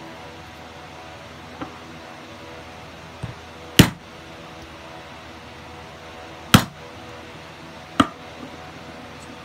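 A hammer striking a rivet-setting tool to set a fixed (double-cap) rivet through leather: a couple of light taps, then three sharp strikes a few seconds apart, the first two loudest.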